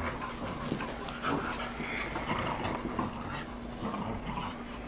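Several dogs play-fighting, with short irregular dog vocal sounds and the scuffle of bodies and paws.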